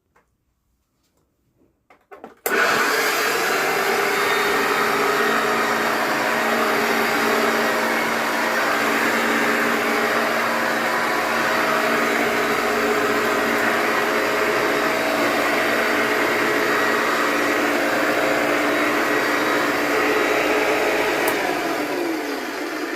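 Old Hoover vacuum cleaner switched on about two and a half seconds in, then running steadily with a motor whine over a broad rush of air.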